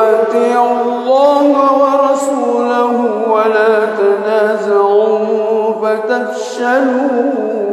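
Male imam's melodic Quran recitation in prayer: one long phrase sung on a held, ornamented melody. It starts sharply and trails off near the end.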